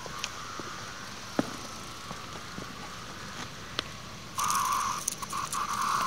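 Steady hum of a distant chorus of 17-year periodical cicadas with a few sharp clicks, then about four seconds in a single periodical cicada close by breaks into a loud, harsh buzz that carries on in pulses, the startled cicada's distress call as a hand reaches for it.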